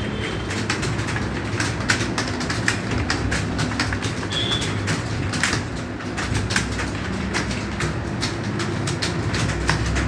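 Several people typing fast on computer keyboards: a dense, irregular clatter of keystrokes over a steady low hum.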